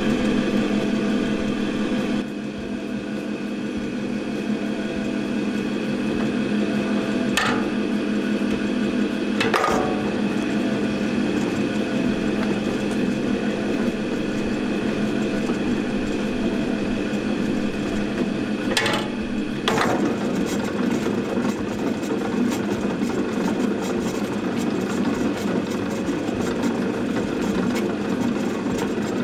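Aicoh chemical mixer running empty, its two hook beaters turning: a steady mechanical drive hum. Three sharp knocks come through it, two close together early on and one later.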